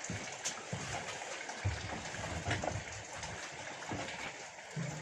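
Faint rustling and scattered light ticks at the rear wheel of a VAZ-2104, with no whistle: the brake drum openings have just been lubricated. A low steady hum begins near the end.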